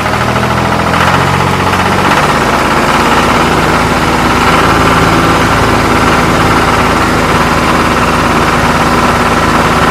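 Engine running loudly and steadily, with a rapid even knocking pulse.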